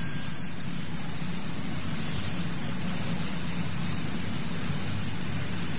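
Steady hiss with a low hum underneath: the background noise of an old lecture tape recording, with no speech.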